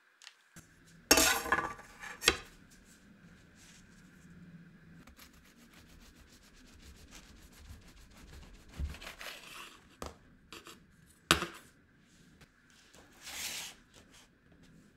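A long knife cutting down through the soft edge of a sponge cake, in short scraping strokes, with a sharp knock of the blade against the cake board partway through. Loud paper rustling about a second in.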